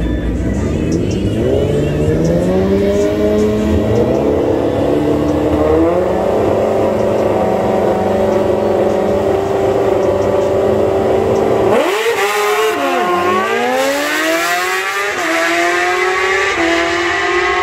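Racing engines under hard acceleration. An engine's pitch climbs in steps as it shifts up through the gears, then holds high; about twelve seconds in, another engine takes over, dipping and then climbing again.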